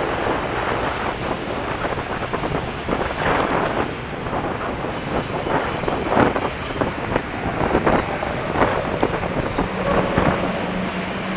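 Gusty wind buffeting the microphone of a camera carried on a moving bicycle, over steady rolling road noise. A low steady hum comes in near the end.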